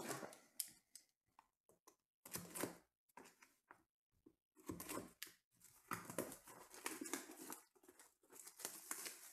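Shrink-wrap plastic on a sealed trading-card box being slit with a utility knife and torn off by hand: crinkling, tearing rustles in several short stretches with pauses between.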